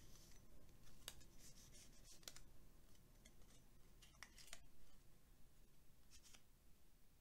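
Faint, irregular scraping strokes and small clicks of a card being scraped through a CPU heat sink to dig out packed dust.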